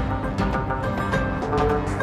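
Film soundtrack music: sustained pitched tones with repeated percussion strikes.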